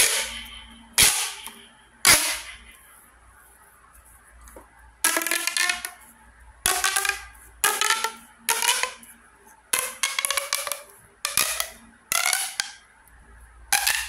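Pink plastic straw pop tube fidget toy being stretched and squashed by hand: three sharp pops about a second apart, then a run of about eight short ratcheting rasps as its ribbed segments snap open and shut in quick succession.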